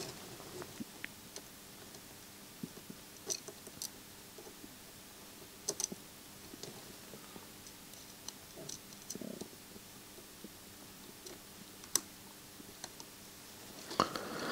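Scattered small clicks and taps from handling tiny screws and a small screwdriver on a CD player's drive assembly, irregular and a second or more apart, over a faint steady hum.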